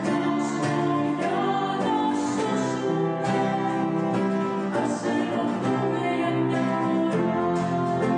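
A woman singing a slow song in Greek, accompanied by an acoustic guitar.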